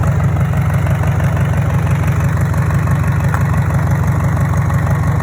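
Freshly rebuilt Hyundai D4DC diesel engine idling steadily, an even low drone of firing pulses.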